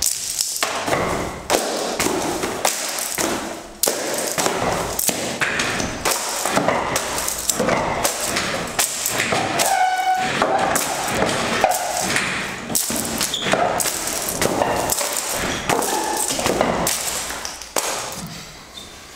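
Pens, papers and other small desk items knocked off a desk, clattering and thudding onto a tiled floor again and again, with abrupt jumps between one spill and the next.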